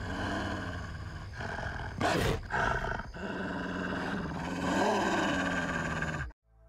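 Canine growling over a steady low hum, with a sharp hit about two seconds in; it cuts off abruptly near the end.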